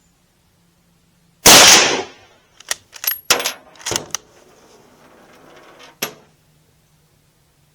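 A single shot from a Mauser K98 bolt-action rifle firing 8mm Mauser full metal jacket, followed about a second later by a quick run of sharp metallic clicks as the bolt is worked, and one more click near the end.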